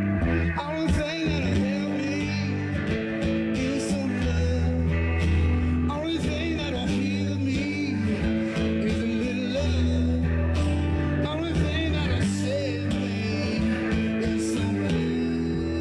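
Live electric guitar playing an instrumental break with bending, wavering lead notes over held bass notes that change every couple of seconds.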